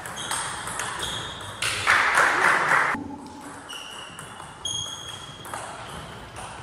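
Table tennis ball clicking off paddles and the table in a fast doubles rally, with one louder burst of noise lasting about a second around two seconds in.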